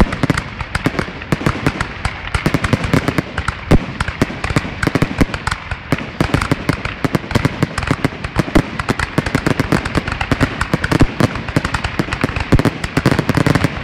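Grand-finale fireworks barrage: aerial shells bursting close overhead in rapid succession, many bangs and crackles a second without a break.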